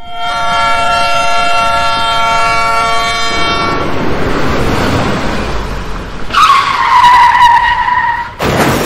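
Dubbed-in toy-vehicle sound effects: a held horn blast for about three and a half seconds, then a rushing engine-like noise, a falling squeal, and a sudden loud burst near the end.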